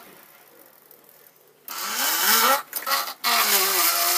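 A small handheld power tool's motor whines, its pitch wavering up and down as the spinning tip is pressed hard into plastic to friction-burn a hole. It starts after about a second and a half of quiet, breaks off briefly near the middle, then runs again.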